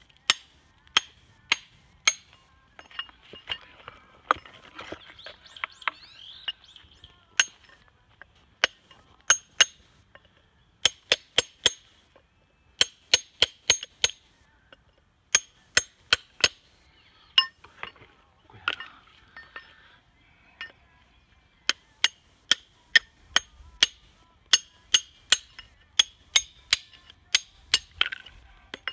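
Hammer striking a rough Japanese natural whetstone (Takao su-ita stone) again and again in sharp, ringing clinks, often in quick runs of three to five blows with short pauses. The stone is being 'forged' by knocking it apart at its weakly bonded seams, and the ring of each blow is a tap test of where it is sound.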